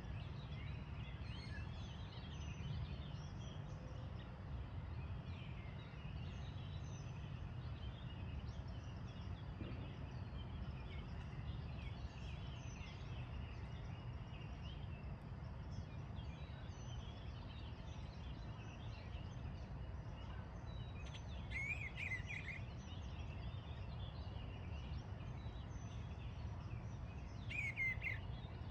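Many small birds chirping and singing throughout, with two louder bird calls, one about three quarters of the way through and one near the end, over a low steady rumble.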